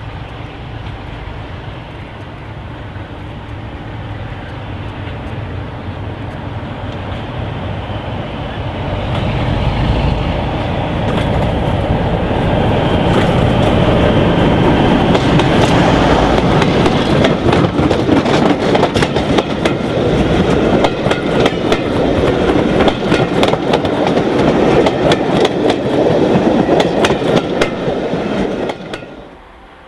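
Class 47 diesel locomotive with its Sulzer twelve-cylinder engine working as it hauls a passenger train towards the listener, growing steadily louder. As the coaches pass close by, their wheels click over the rail joints. The sound cuts off suddenly near the end.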